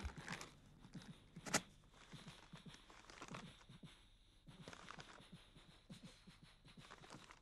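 Faint chewing and rustling sounds of someone eating a baguette sandwich: a scatter of small irregular crackles, with one sharper crackle about a second and a half in.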